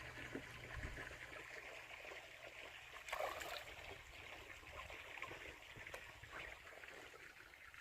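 Faint trickling, running water with a brief louder rush about three seconds in.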